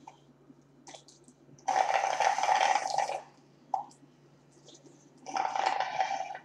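A child slurping a drink through a plastic straw: two long noisy slurps, the first about two seconds in and lasting about a second and a half, the second near the end.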